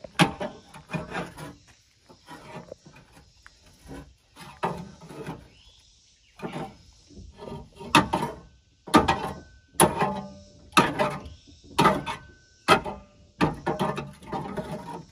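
Steel pry bar levering on a bus's exhaust muffler: repeated metal clanks and creaking squeaks as it is worked back and forth, coming faster and louder in the second half.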